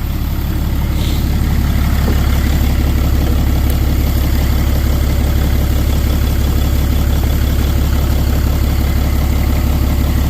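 Dodge diesel pickup engine idling steadily, left running for a minute or two after an oil change.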